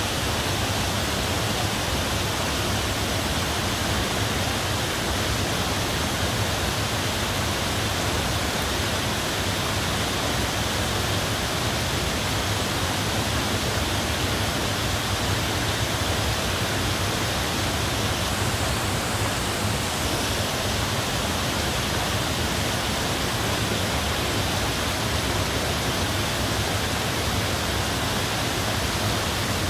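Steady, even rush of falling water, unbroken throughout.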